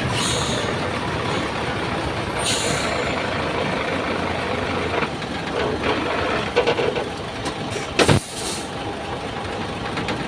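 Truck's diesel engine idling steadily, with two short air hisses in the first few seconds and one heavy metallic clunk about eight seconds in.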